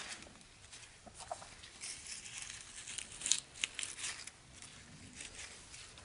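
Faint rustling and light crackling of holly, rosemary and privet sprigs being handled and laid together by gloved hands, with a few sharper scratchy crackles in the middle.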